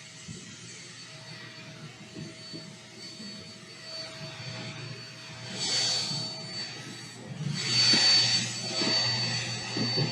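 MEIYOU 18000Pa corded stick vacuum running on carpet: a steady motor whine under rushing suction noise, which swells loudly twice in the second half as the vacuum is worked over the pile.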